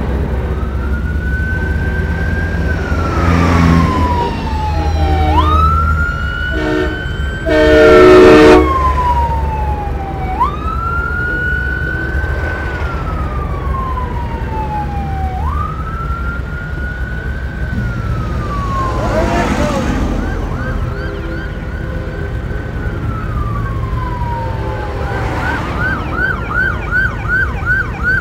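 Police siren wailing, a slow rise and fall repeating about every five seconds, switching to a rapid yelp near the end. A horn blasts loudly about eight seconds in, with diesel truck engines rumbling underneath.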